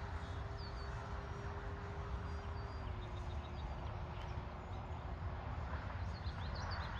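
Faint steady hum of the Sig Senorita RC plane's electric brushless motor and propeller in flight, dropping slightly in pitch about three seconds in and fading out a couple of seconds later, over a low rumble, with birds chirping.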